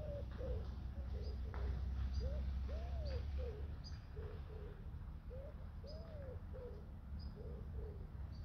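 A pigeon cooing in repeated phrases of about five notes, the middle note longer and arched, with faint high chirps of small birds and a low steady rumble beneath.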